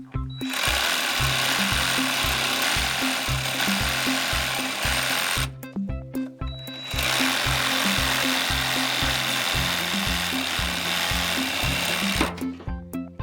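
Stanley 18-volt battery reciprocating saw cutting wood, running in two stretches of about five seconds with a short stop in between. Background music with a steady beat plays underneath.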